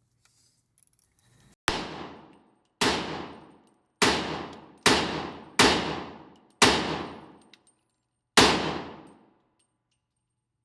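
Seven gunshots from a firearm, fired one at a time at uneven intervals of about a second, with a longer gap before the last. Each shot rings off in a reverberant decay.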